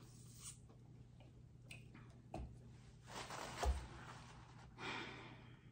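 Faint handling sounds: a few soft clicks and knocks, a low thump about three and a half seconds in, and a couple of brief rustling swells, over quiet room tone.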